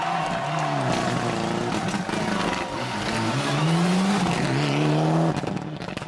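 Rally car engine revving hard, its pitch rising and falling through several gear changes as it comes through a bend past the camera, at its loudest about four seconds in, then dropping away sharply just after five seconds as the car pulls away.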